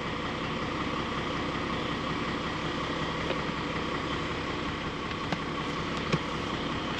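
A vehicle engine idling steadily, with two brief faint clicks in the second half.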